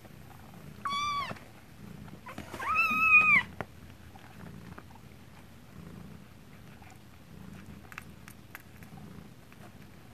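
Nursing kittens mewing twice, a short high mew about a second in and a longer, louder one around three seconds in, over a cat's steady low purring.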